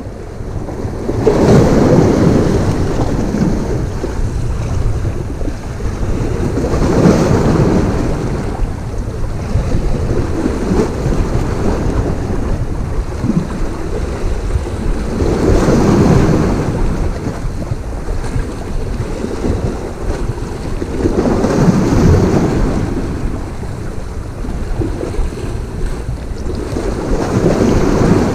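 Wind buffeting the microphone over sea waves washing against a rocky shore, a loud rushing noise that swells and eases every five or six seconds.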